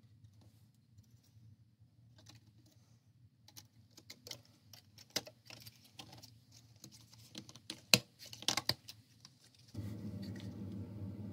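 Light clicks and wooden taps as a grid of thin wooden divider strips is handled and pressed down into a shallow fabric-lined wooden tray, the sharpest knocks about eight seconds in. A steady low hum starts near the end.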